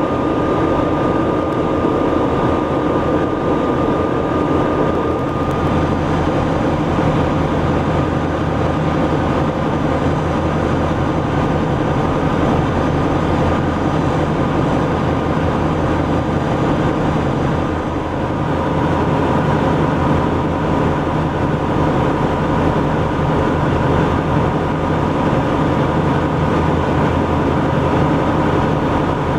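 Steady drone of a harbour tug's diesel engines, heard from on board. A deeper hum comes in about five seconds in, and the tone shifts briefly near eighteen seconds.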